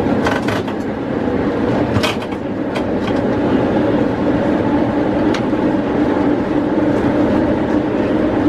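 Vintage vicinal tram running along street track, heard from its cab: a steady running hum, with a few sharp clicks and knocks, the clearest early on and about two seconds in.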